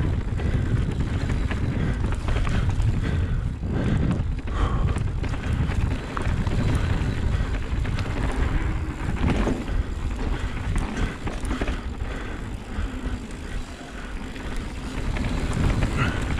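Mountain bike riding down a dirt trail: wind buffeting the action camera's microphone over a steady rumble of tyres and bike, with frequent rattles, clicks and knocks from the bike over rough ground.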